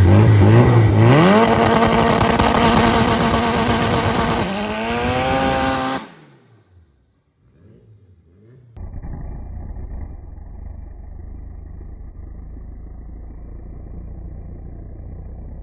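Freshly rebuilt turbocharged drag-car engine revved hard for a launch: the pitch climbs, holds at a steady high rpm for about three seconds, then climbs again as the car pulls away, and the sound cuts off suddenly about six seconds in. After a brief lull a steadier, quieter low engine sound runs on.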